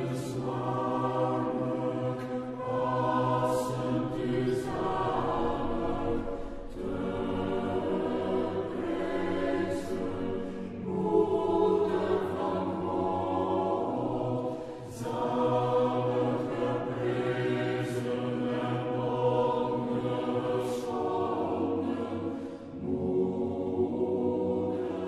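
A choir singing a slow chant in long held chords, with several phrases that each end and start again.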